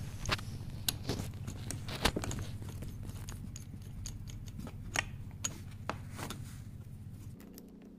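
Small steel pulley puller being handled and hooked over a timing pulley on a motor shaft: scattered metallic clicks and taps, over a low steady hum that stops near the end.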